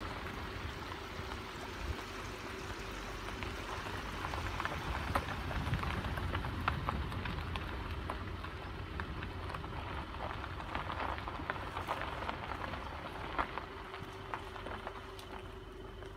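A vehicle moving slowly on a gravel road: a low rumble and a steady hum, with scattered crackling of gravel under the tyres. It eases off a little near the end.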